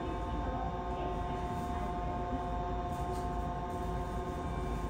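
Steady electrical hum with several high steady tones over it inside a 3000A-series subway car standing at a station: the car's on-board equipment running while the train waits.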